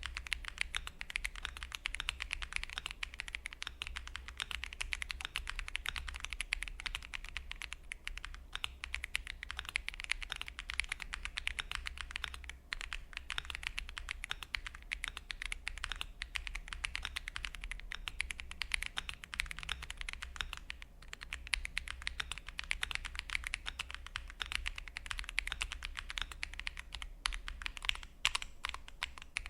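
Fast, continuous typing on a Keydous NJ87 Pro gasket-mount mechanical keyboard with an aluminium case: a dense clatter of keystrokes, with a couple of brief pauses.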